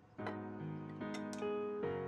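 Instrumental background music of plucked string notes, a new note coming about every 0.4 seconds.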